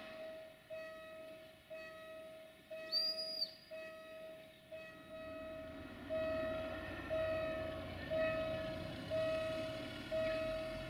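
Level crossing warning bell ringing about once a second, each strike sharp and then fading, signalling an approaching train. A brief high whistle sounds about three seconds in.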